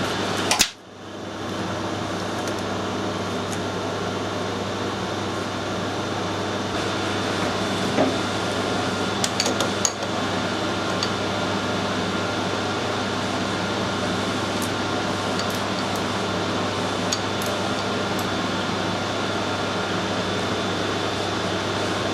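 Metal lathe running steadily while taking a turning cut on the workpiece, a constant motor hum with a few light clicks around the middle. A short sharp knock comes under a second in, followed by a brief dip.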